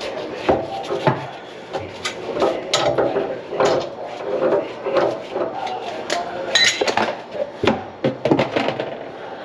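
Irregular clattering of hard objects being handled at a kitchen sink: a string of knocks and clinks, with one short ringing clink about two-thirds of the way through.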